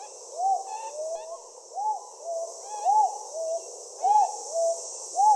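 A pigeon cooing in a repeated low two-note phrase, a rising-and-falling coo then a shorter flat one, about once a second. A steady high hiss and a few faint higher bird chirps sound behind it.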